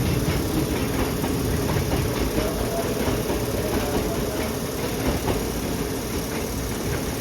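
Hankyu electric train running: a steady rumble with a faint, even whine over it.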